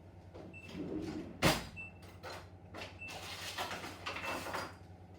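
Kitchen handling sounds: a sharp knock about a second and a half in, like a dish or door being set or shut, then a few seconds of rustling and scraping. A faint short high pip repeats about once a second.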